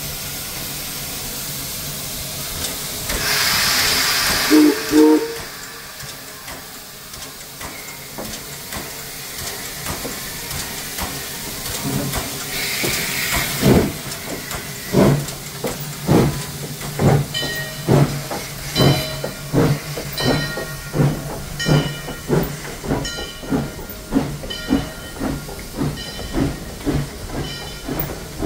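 Steam locomotive No. 2023 venting steam with a loud hiss and giving two short whistle toots, the usual signal that it is about to move off. After another hiss it starts pulling away, with a steady rhythmic beat a little faster than once a second.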